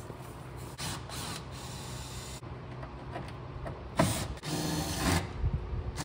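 Screws being worked out of a plastic interior kick panel with a small hand screwdriver: short scraping stretches of tool on screw and trim around one second in and again near five seconds, with a sharp knock about four seconds in, over a steady low hum.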